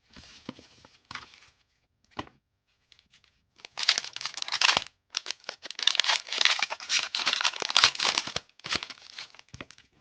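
Pokémon TCG booster pack wrapper being torn open and crinkled by hand, a few light clicks and rustles at first, then a long run of loud crinkling and tearing from about four seconds in.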